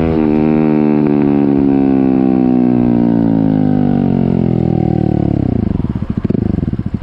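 Honda CB125R's single-cylinder four-stroke engine through an IXRACE M9 full exhaust with the baffles removed. Its revs fall steadily as the bike slows, then drop sharply to a lumpy idle about six seconds in.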